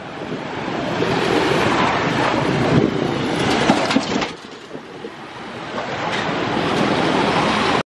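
Motorbike and car traffic on a busy city street, a dense rush of engine noise that drops away briefly about four seconds in and cuts off suddenly near the end.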